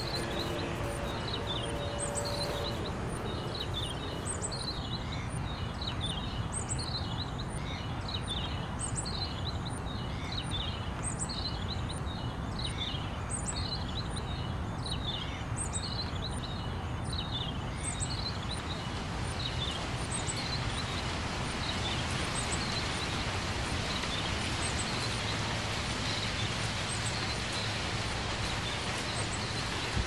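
Steady rushing outdoor noise with a bird calling over and over, a short high chirp about once a second, that fades away after about eighteen seconds. The rushing noise grows a little brighter toward the end.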